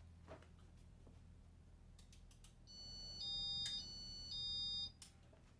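Electronic beeping in two alternating high pitches, four steps over about two seconds, with a few faint clicks and a low steady hum underneath.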